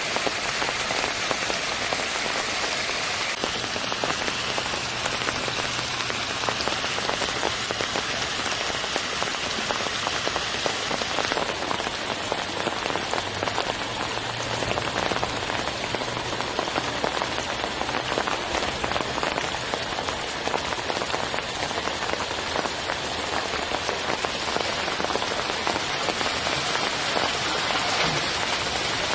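Steady splashing rush of floodwater running down over rocks and through leaf litter.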